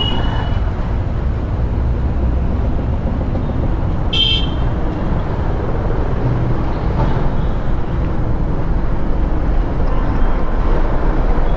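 Steady wind rumble and road noise from riding an electric scooter through street traffic, with a brief horn toot about four seconds in.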